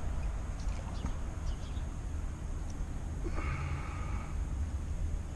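Light drips and small splashes of canal water as a pike is held in the water for release, over a steady low wind rumble on a head-mounted camera's microphone. A short breathy exhale comes about three seconds in.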